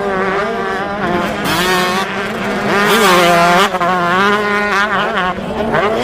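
Motocross dirt bike engines revving hard on a race track, their pitch rising and falling as the bikes accelerate and shift, with louder surges about a second and a half in and again around three seconds.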